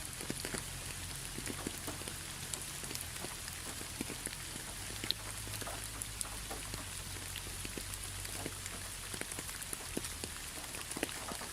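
Steady rain falling, with many individual drops striking close by as scattered sharp ticks, over a steady low rumble.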